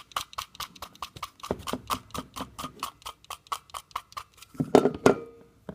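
Quick repeated strokes of a strip of Velcro brushing the fine braid wires of quad-shield RG6 coax back, a fast run of scratchy clicks at about six a second. Near the end come a couple of louder, longer scrapes.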